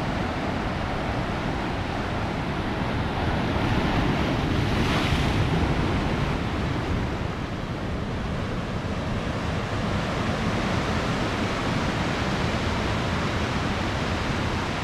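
Rough, fast-running seawater surging and washing against the rocks, a strong flood-swollen current, with wind buffeting the microphone. A louder wash comes about five seconds in.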